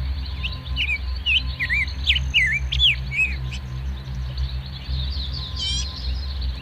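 Birds chirping: a run of short, quick sweeping chirps in the first half and a fast rising trill near the end, over a steady low drone.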